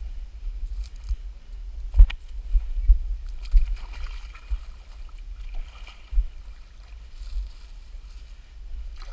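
Low, uneven rumble and bumps of a body-worn camera's microphone as its wearer moves about, with one sharp knock about two seconds in.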